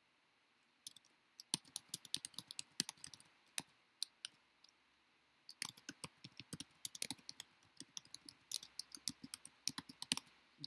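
Typing on a computer keyboard: quick runs of key clicks, with a pause of a second or two near the middle.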